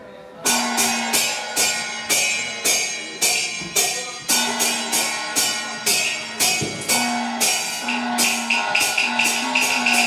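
Taiwanese opera percussion accompaniment: metal cymbals and gongs struck in a steady beat of about two strikes a second, each ringing on, starting about half a second in.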